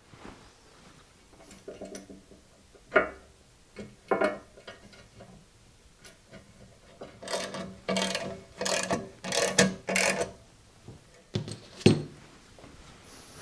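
Bandsaw parts being handled and worked by hand: scattered clicks and knocks, then a run of five short rasping strokes about half a second apart, then two sharper knocks near the end.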